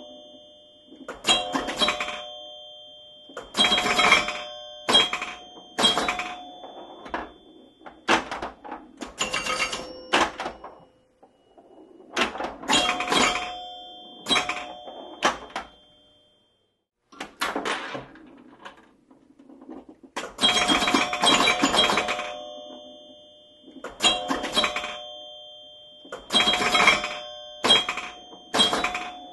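Pinball machine in play: clusters of sharp clacks from flippers and bumpers, with ringing chime tones that ring out and fade, recurring every second or two.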